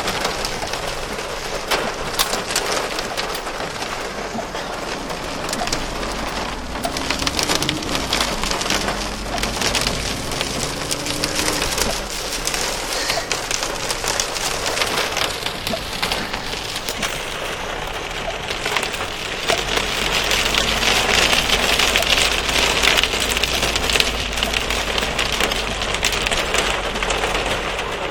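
Heavy rain pouring onto hard surfaces: a dense, steady hiss of countless drops, growing louder about two-thirds of the way through. A deep rumble comes and goes beneath it.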